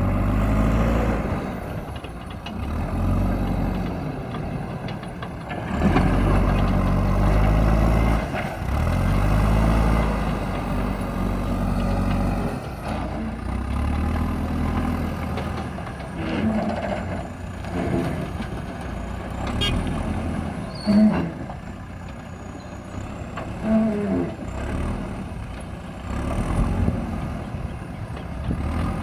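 JCB backhoe loader's diesel engine working under load, revving up and settling back in repeated surges, with a few short knocks and clanks.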